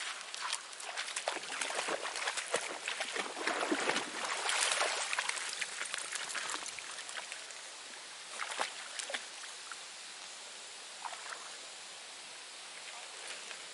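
A German shepherd wading and splashing through shallow river water, with dense splashing for about the first seven seconds and then only a few light splashes.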